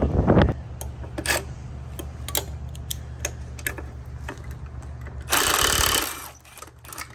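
Diesel engine being cranked over by its starter motor, a fast, even churning that does not catch and fire, stopping about six seconds in. A loud hiss comes just before the cranking stops, with scattered clicks throughout.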